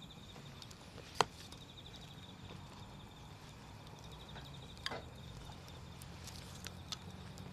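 Wood campfire crackling: a few scattered sharp pops, the loudest about a second in and others near five and seven seconds, over a faint steady background.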